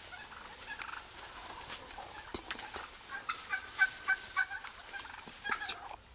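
Wild turkeys in a flock calling: scattered short calls, with a quick run of evenly spaced notes in the middle that is the loudest part.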